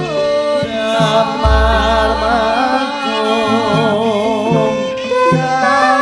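Female Javanese singer (sindhen) singing a wavering, ornamented vocal line over a gamelan ensemble's sustained metallophone tones, with a deep low stroke about a second and a half in.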